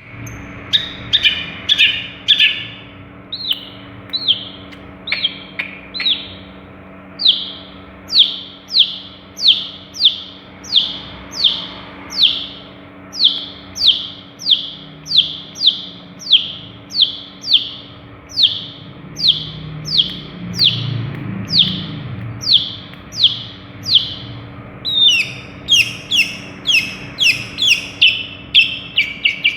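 Long-tailed shrike singing: a long run of sharp, evenly repeated down-slurred notes, about one and a half a second, after a few irregular notes at the start, breaking into a faster, denser run of notes near the end.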